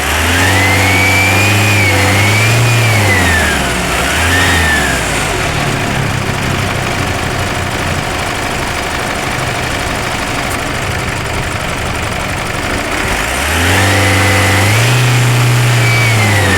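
Isuzu MU-X turbodiesel engine revved from idle, held up for a few seconds, blipped once, left idling, then revved again near the end. A thin whistle rises and falls with the revs: the turbo noise being chased.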